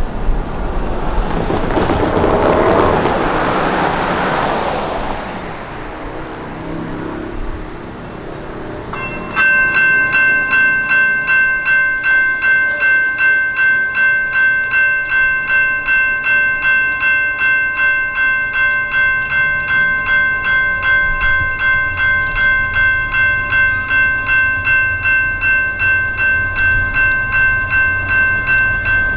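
A car passes over the crossing. About nine seconds in, the railroad crossing warning bells start up and ring steadily at about two strikes a second, signalling an approaching train.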